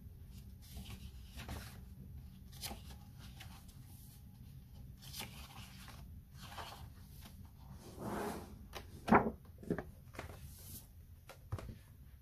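Paper pages of a paperback colouring book being turned by hand: soft rustles and flicks, with a louder rustle about eight seconds in and a sharp thump just after, the loudest sound.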